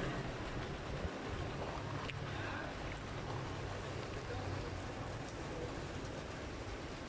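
Steady outdoor background noise, a low hum under a wind-like hiss, with a couple of faint clicks and a few faint bird calls.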